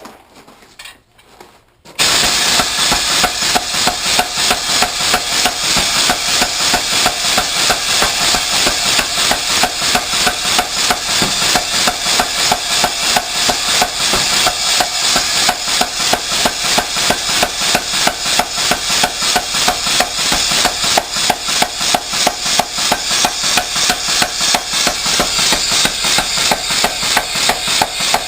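Home-built blacksmith's pneumatic air hammer, made from David Robertson plans, starting about two seconds in and then striking in a fast, steady, even rhythm of blows.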